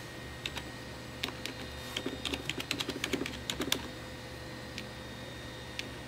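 Keys tapped on a computer keyboard: quick runs of clicks over the first few seconds, then a pause and a single keystroke near the end, over a steady low hum.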